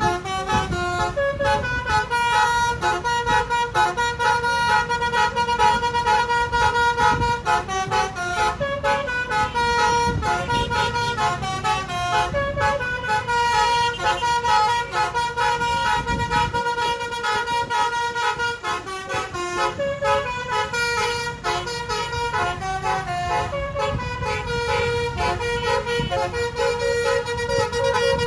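Telolet basuri, a bus's multi-tone musical air horn, playing a long melody of changing notes for the whole stretch, with low engine and road rumble underneath.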